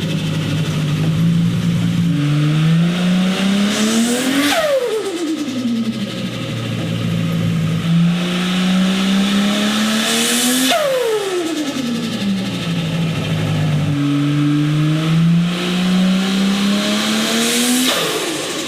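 Cars accelerating hard past one after another, engine notes climbing in pitch, each pass swelling to a loud rush then dropping sharply in pitch as it goes by; three passes.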